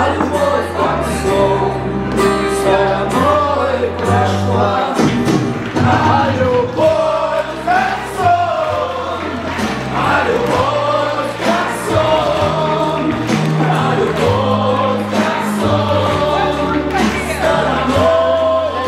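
A song for dancing: singing voices over a steady beat and a bass line that steps from note to note.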